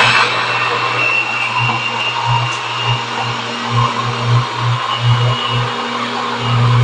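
A countertop blender running at full speed cuts off at the start, leaving a steady low hum with a background hiss.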